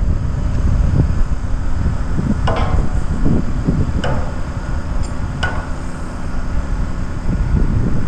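Wind buffeting the microphone, with three sharp knocks from the pile-driving site about a second and a half apart in the middle, each ringing briefly.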